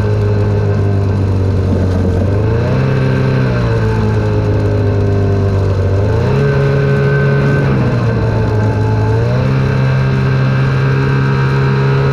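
Snowmobile engine running at low speed, its pitch stepping up with the throttle three times, falling back after the first two and holding higher near the end.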